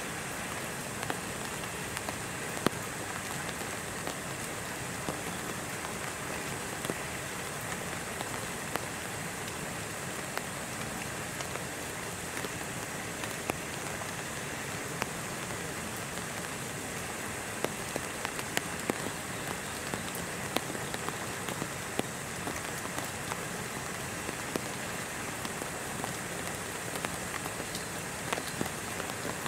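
Steady rain falling, with scattered louder drops striking close by.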